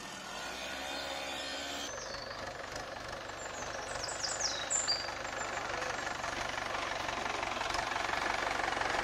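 A motorcycle engine running for about two seconds, then an old tractor's engine running with a fast, even knock as it drives through mud. A few short bird chirps come in around the middle.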